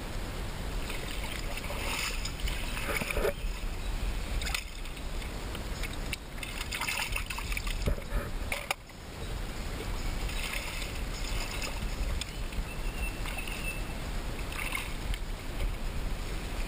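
Hands splashing and sloshing in shallow river water in irregular bursts, over a steady low rumble.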